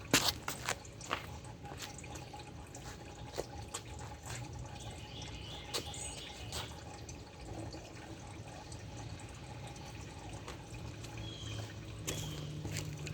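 Scattered small clicks and drips from handling a used oil filter as it is cut open, with oil dripping.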